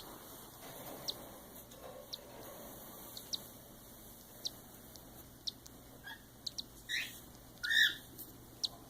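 Week-old cockatiel chicks peeping: short, high peeps about once a second, with two longer, louder calls near the end.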